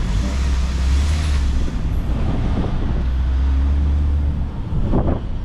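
Taxi's engine and road noise heard from inside the cabin as it pulls away, a steady low drone.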